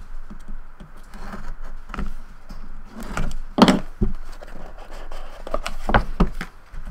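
Cardboard trading-card box being handled on a table: scrapes and knocks as its seal is cut, the box turned over and its lid slid off, the loudest knock about three and a half seconds in.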